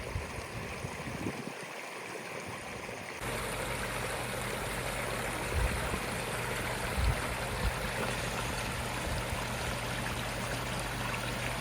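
Water rushing and splashing steadily down a newly built natural limestone waterfall. The sound steps up in level about three seconds in and then holds steady.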